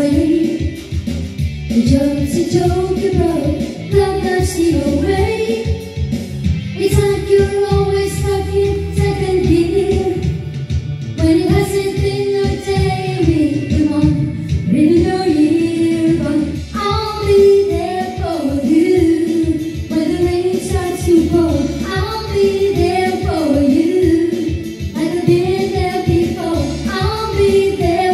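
A woman singing a pop song into a handheld microphone over a recorded backing track with a steady beat.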